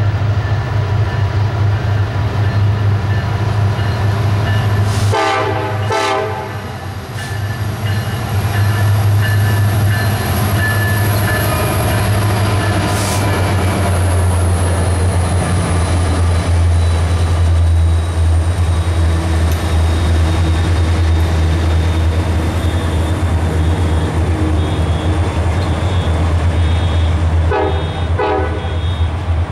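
Union Pacific freight train's diesel locomotives passing close by with a loud, steady deep engine rumble, the horn sounding a short blast about five seconds in. Then the double-stack container cars roll past with wheel and rail noise.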